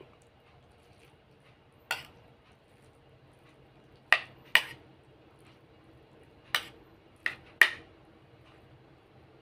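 A metal spoon clinking against a plate while someone eats from it: six short, sharp clinks spaced unevenly, two close together about four seconds in and three close together near the end.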